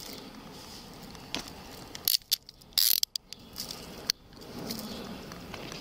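Metal handcuffs clicking shut on a wrist, a few sharp ratchet clicks about two to three seconds in, with clothing rustling.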